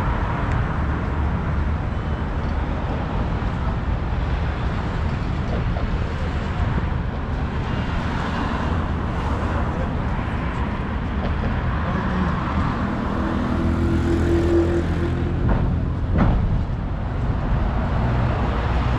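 City street ambience dominated by road traffic: a steady rumble of passing cars and other vehicles, with a brief steady tone about two-thirds of the way through.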